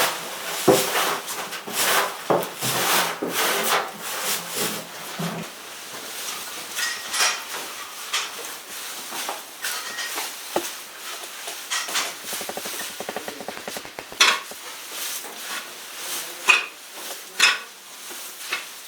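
Cattle feed of chopped napier grass, lucerne and silage being mixed by hand: irregular scraping and rustling strokes, with a brief fast rattle about two-thirds of the way through.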